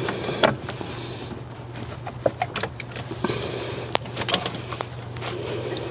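Irregular small clicks and knocks of spark plug wire boots being worked off the old ignition coil pack and onto the new one, over a steady low hum.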